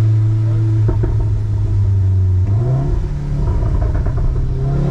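Volkswagen Golf 7 R's turbocharged four-cylinder engine and exhaust heard from inside the cabin: a steady drone for a couple of seconds, then the car accelerates and the revs climb, with a brief dip near the middle.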